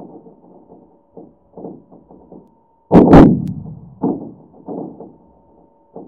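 Seismometer data from a Yellowstone network station's vertical short-period channel, sped up into audio at a 7,000 Hz sample rate. Small seismic events come through as a string of soft thuds and pops. About three seconds in there is one much louder sharp boom that dies away into a rumble, over a faint steady tone.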